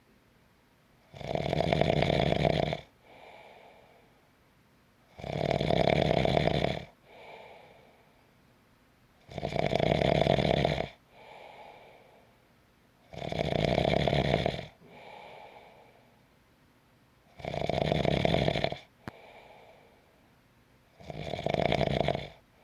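A person snoring in a steady rhythm: six loud snores about four seconds apart, each followed by a fainter, shorter breath sound.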